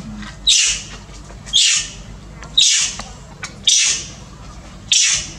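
Young long-tailed macaque screaming in pain while its leg wound is cleaned: five short, shrill screams, about one a second, each trailing down in pitch.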